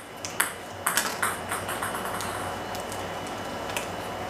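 Scissors snipping open a small plastic packet of glitter: a few sharp snips and crinkles in the first second and a half, then quieter handling, over a faint steady high-pitched tone.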